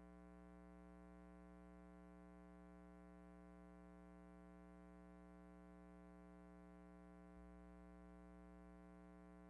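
Near silence with a faint, steady hum of several even tones, unchanging throughout.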